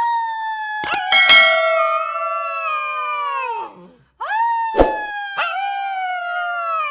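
A dog howling: two long howls, each holding a fairly steady pitch and then sliding down at the end, with a few sharp clicks over them.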